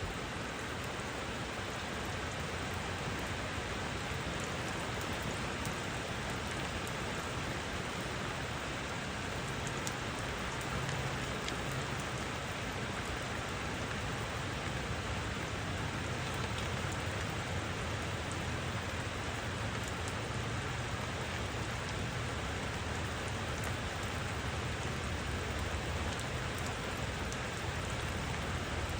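Steady rain falling, with a dense patter of small drop ticks over an even hiss.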